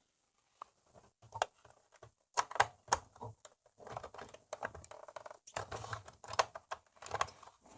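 Light, irregular clicks, taps and rustles of small parts being handled as a replacement dial lamp is pushed and positioned into its holder inside a receiver.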